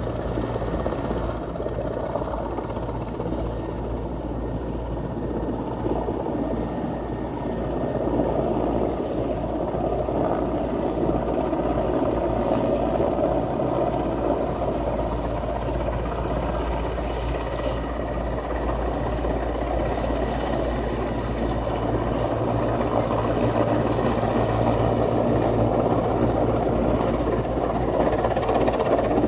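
Helicopters' rotors and turbine engines running steadily, growing gradually louder as they come in to land.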